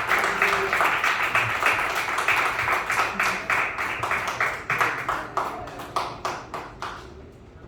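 Congregation applauding, a dense patter of hand claps that thins out and dies away about seven seconds in.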